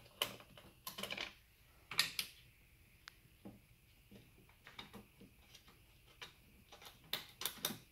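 Faint scattered clicks and taps of small metal parts being handled: an Allen key working out the screws that hold an M24 gel blaster's barrel, and the small screws set down on a wooden workbench. The clicks come singly and in pairs, with a quick cluster near the end.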